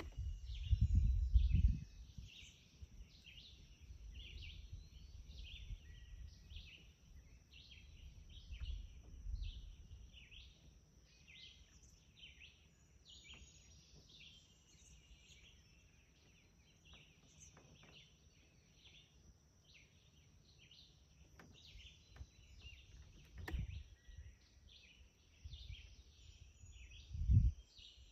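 Birds chirping over and over in summer woodland, a few short calls a second, with a steady high tone behind them. Low rumbles on the microphone are loudest in the first two seconds and again near the end.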